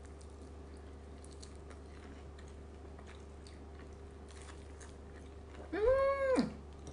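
Faint crunching of someone biting and chewing crisp, starch-coated fried chicken. Near the end a short hummed "mmm" that rises, holds and drops in pitch.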